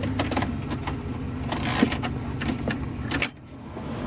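1990 Ford F350 pickup engine idling, heard from inside the cab, with several sharp clicks as buttons on the dash stereo are pressed. The sound briefly drops about three seconds in.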